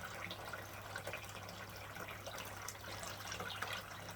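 Water lightly splashing and trickling in a basin of clothes being rinsed by hand, with scattered small drips and splashes.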